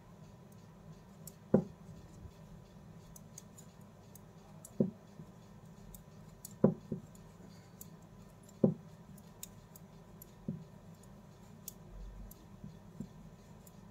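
Metal knitting needles knocking and clicking against each other as cloth-strip stitches are worked: about six short knocks, irregularly spaced a second or two apart, over a low steady hum.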